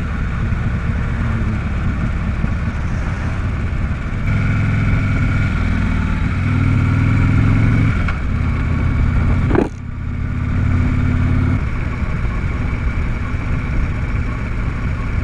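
Harley-Davidson Road King's V-twin engine running under way as the bike is ridden. The engine note grows louder from about four seconds in, breaks briefly twice around eight and ten seconds in, then settles to a steadier, quieter cruise.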